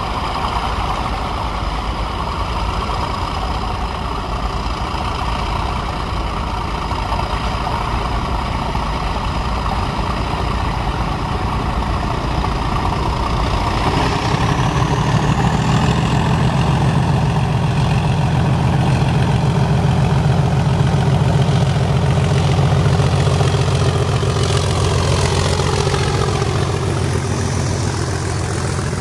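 Class 37 diesel locomotive's English Electric V12 engine running as it approaches hauling a train of tank wagons. From about halfway a deep steady drone grows louder, with a high whistle rising in pitch above it. Near the end the wagons roll past.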